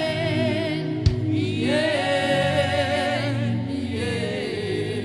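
Gospel worship singing: voices hold long, wavering sung notes over steady sustained backing chords, with one sharp click about a second in.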